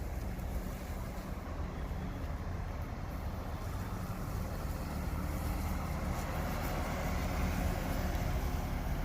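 A car driving, its engine running as a steady low drone that grows slowly louder.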